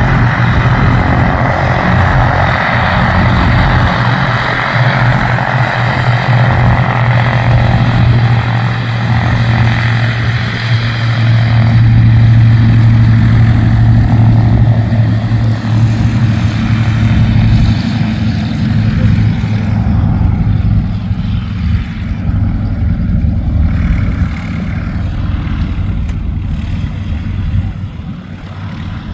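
Douglas C-47 Dakota's twin radial piston engines running loud as it rolls along the grass airfield with propellers turning. The steady deep engine note builds to its loudest about halfway through, then fades away.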